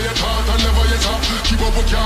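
Bass-heavy hip-hop music with a steady beat and deep sustained bass.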